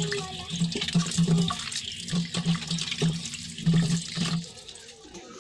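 Water splashing and trickling as boiled white corn cobs are moved around in a pot of cooking water, with a low hum coming and going; it dies down near the end.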